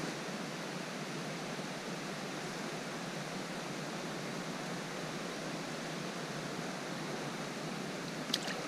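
Steady rush of flowing river water, an even noise with no change, and a brief click near the end.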